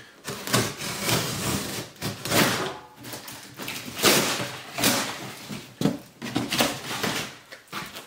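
Large cardboard shipping box being cut open along its edge and the top flap pulled up and folded back: a run of cardboard and packing-tape tearing, scraping and rustling.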